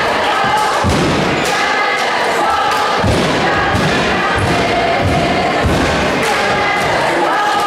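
Gymnasium noise during a basketball game: held, choir-like voices over a string of dull low thumps, about one every half second to a second through the middle.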